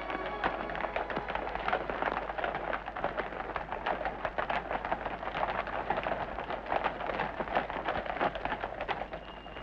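Hooves of a troop of cavalry horses clattering on a paved road: many overlapping, irregular hoofbeats, easing a little near the end.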